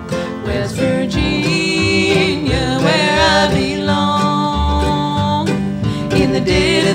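Instrumental break in an old-time country song: acoustic guitar and other plucked strings playing a steady accompaniment between sung verses.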